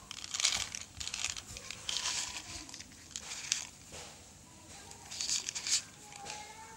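Plastic packaging crinkling in irregular bursts as it is handled and pulled open.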